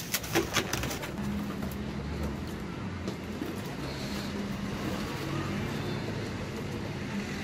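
Steady low hum of a nearby vehicle engine, with a few sharp clicks of cardboard being handled in the first second.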